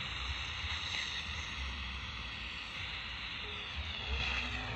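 CB radio receiver on 27.025 MHz giving steady static hiss, with a weak, distant transmission faint beneath the noise. Near the end a tone slides down in pitch through the static.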